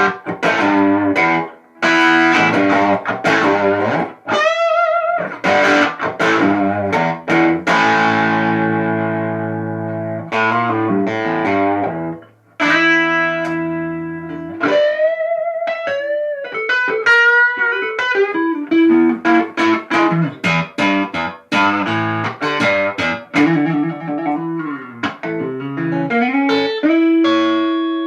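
Electric guitar played through an amplifier, mixing struck chords with single-note lead lines. The lines carry string bends and vibrato, and one chord rings out and fades for several seconds.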